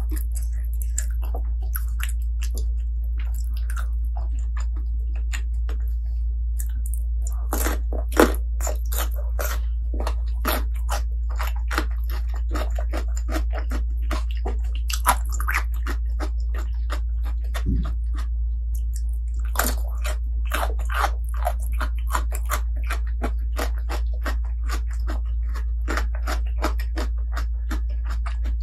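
Close-miked eating: a person biting, chewing and crunching food in irregular clusters of wet, crisp clicks. A steady low hum runs beneath it.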